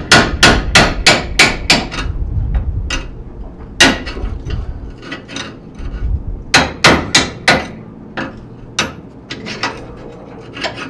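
Hammer blows on a steel punch driving rusted remains of a seized leaf spring bushing sleeve out of an EZGO golf cart's spring eye, metal striking metal. A fast run of strikes comes first, then a single blow, another run of four or five, and lighter taps near the end.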